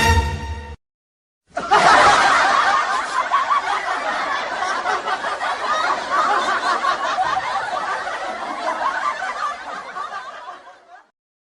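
Laugh-track sound effect: a crowd of people laughing together. It starts about a second and a half in and gradually fades out near the end.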